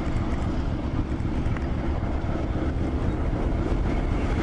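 Diesel locomotive ploughing through deep snow at close range: a steady rumble of the engine and the blasting snow, with wind buffeting the microphone.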